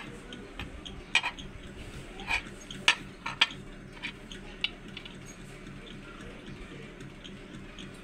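Several sharp metallic clinks and taps in the first half, a metal coin handled and knocked against a hard tiled tabletop.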